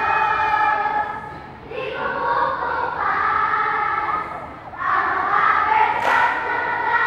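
A large group of girl scouts singing or chanting together in unison, in high voices, in short held phrases with brief breaks between them.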